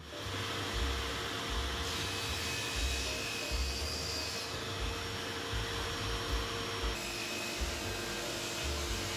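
A power tool running steadily, with a droning hum whose pitch drops a little about seven seconds in.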